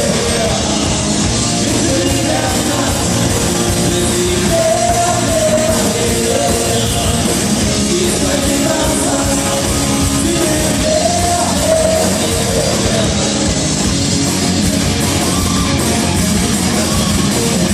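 Live rock band playing, with a singer's voice wavering over dense, steady full-band accompaniment.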